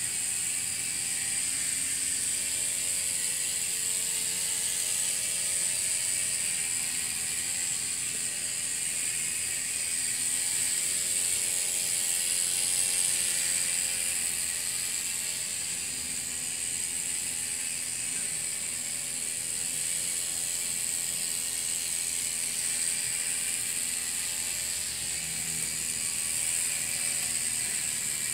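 Miniature one-cylinder, single-acting steam engine driving a small model rail speeder around its track. It runs steadily with a fast, even mechanical clicking and a constant high hiss.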